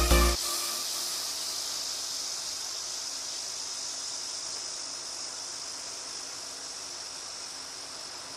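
Background music cuts off just after the start, leaving a steady high-pitched insect drone that slowly fades.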